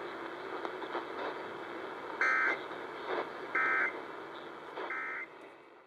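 Emergency Alert System end-of-message data bursts: three short, identical warbling digital tone bursts about a second and a half apart, over steady radio hiss. They mark the end of the warning broadcast.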